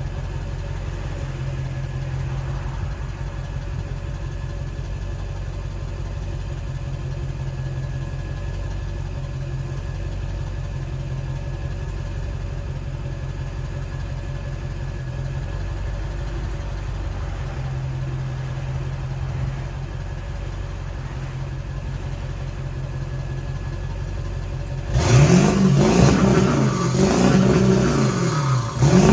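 7.3-litre turbo-diesel V8 idling steadily, then revved hard about 25 seconds in, its pitch rising and falling, with a second quick rev near the end.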